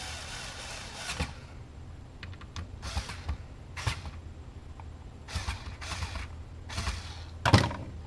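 Cordless electric screwdriver running briefly as it drives home a small drive-tray screw, stopping within the first second. Scattered knocks and clicks of the tool and hard-drive tray being handled follow, with a louder knock near the end.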